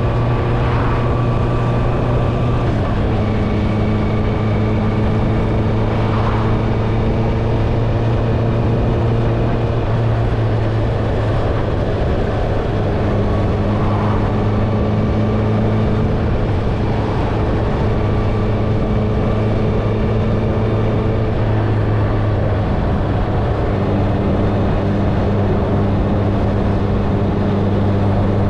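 Honda CBR650R's inline-four engine, fitted with an Akrapovic exhaust, running at a steady cruise. Its note holds even and shifts slightly in pitch a few times, over steady wind and road noise.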